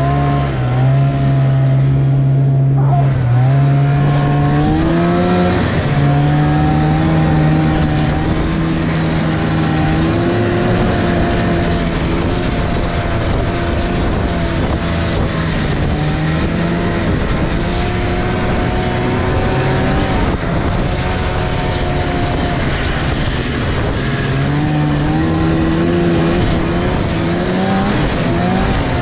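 Snowmobile engine running steadily under way, its pitch stepping up and easing slightly a few times, over a constant rushing noise.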